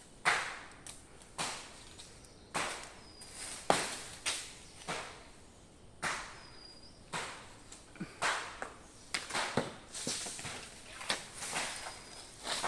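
Repeated chopping blows of a hand blade biting into a tree's wood, one or two sharp strikes a second at an uneven pace.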